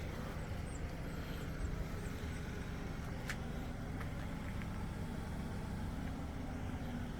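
Steady low engine hum, as of a vehicle idling, with a single sharp click about three seconds in.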